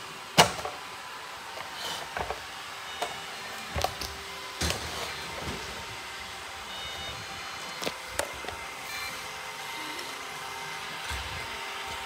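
Robot cleaners running with a steady whir, broken by a scatter of sharp knocks and clicks, the loudest about half a second in.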